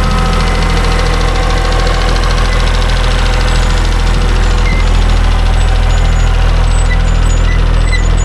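Kubota compact tractor's diesel engine running steadily at idle, loud and close, with an even, rapid firing pulse.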